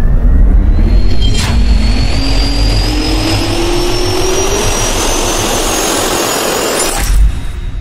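Jet engine spooling up, as a sound effect: a loud roar with a whine that rises steadily in pitch. There is a sharp hit about a second and a half in and another near the end, after which it fades out.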